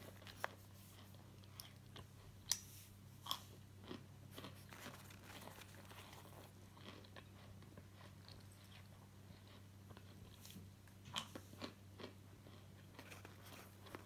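Dry, chalky starch chunks crunching in short, scattered crisp crunches. The loudest comes about two and a half seconds in, and a quick cluster of three comes near the end, over a faint steady electrical hum.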